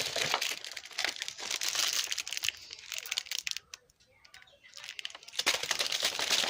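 Crinkling, rustling noise full of small clicks, like something crinkly being handled. It comes in two stretches with a pause of about a second and a half between them.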